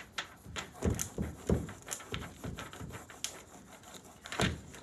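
A small applicator stick rubbing and pressing a rub-on transfer's plastic carrier sheet onto a painted wooden dresser drawer: quick scratchy rubbing strokes with a few low knocks, three of them close together about a second in and one more near the end.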